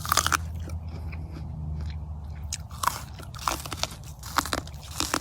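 A person biting into and chewing a raw ear of fresh corn, the kernels crunching: a crisp bite at the start, then several more crunches from about three seconds in.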